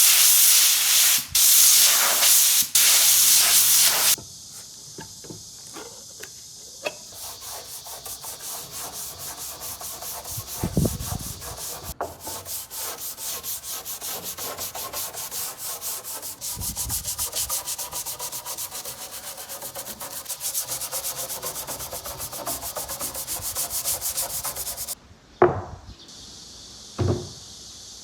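Wood being sanded by hand, sandpaper rubbing back and forth over the board in quick, even strokes, about three a second. It opens with a few seconds of loud, steady rushing noise that stops suddenly, and a couple of low thumps come partway through.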